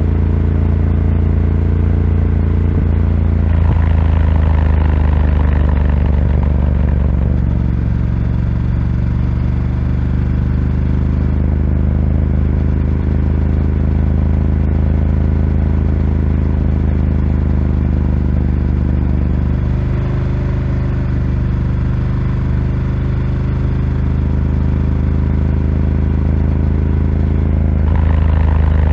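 Ducati Scrambler 1100's air-cooled L-twin engine through a Termignoni exhaust, heard riding along at a steady cruise. The throttle opens a few seconds in and again near the end, bringing a harder, louder note.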